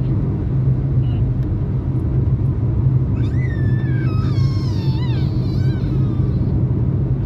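Steady low rumble of a car driving on the road, heard from inside the cabin. About three seconds in come a few high, falling cries lasting a couple of seconds.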